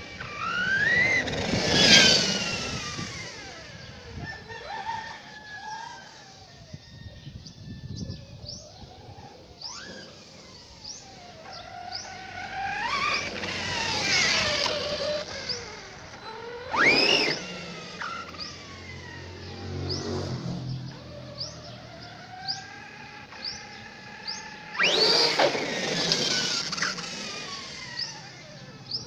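Redcat Kaiju RC monster truck's brushless electric motor whining, rising and falling in pitch as it speeds up and slows, with several loud rising sweeps. Short, evenly spaced high chirps repeat throughout.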